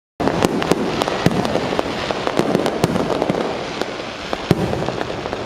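Fireworks display: a dense, continuous crackling with many sharp, irregularly spaced bangs of shells bursting.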